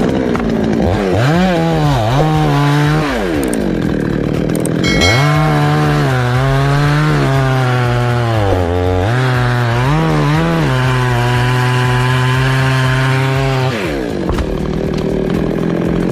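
Chainsaw running under load while cutting into a coconut palm trunk, its engine pitch dipping and recovering with the cut. It breaks off briefly about four seconds in, runs on steadily, then winds down near the end.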